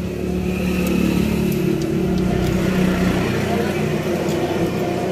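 A motor vehicle engine running steadily, with a few light metallic clicks over it.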